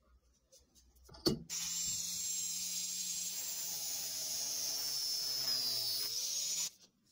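Angle grinder with a cut-off disc: a click, then the motor starts about a second and a half in and runs with a steady high whine. Near the end the whine sags in pitch as the disc bites into a steel tube held in a vise, then the sound stops abruptly.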